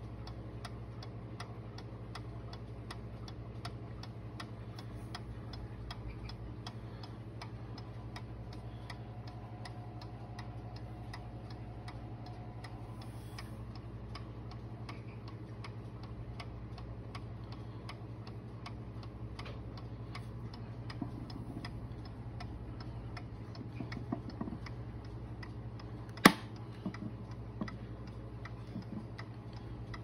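Circa-1898 Waterbury "Leeds" beehive mantle clock ticking with a steady, deep, rhythmic tick-tock from its Brocot open escapement, over a low steady hum. A few soft knocks come in the last third, with one sharp loud knock about 26 seconds in.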